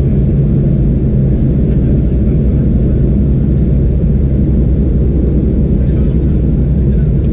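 Steady low rumble of cabin noise inside a Boeing 737-400 in flight: its CFM56 engines and the airflow heard through the cabin, even and unbroken.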